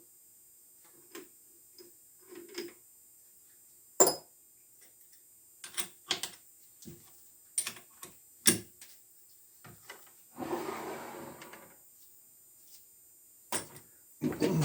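Scattered sharp metallic clicks and clanks of tools and parts being handled at a metal lathe, with a short rough scraping stretch about ten seconds in. A steady machine sound starts just at the end.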